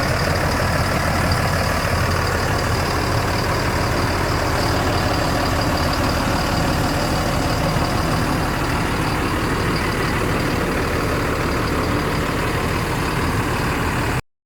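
Large bus diesel engine running steadily at idle, with a thin steady high whine over the rumble.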